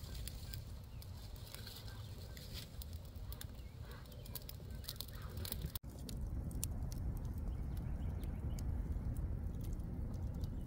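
Wood campfire crackling, with many small sharp pops, over a low wind rumble on the microphone.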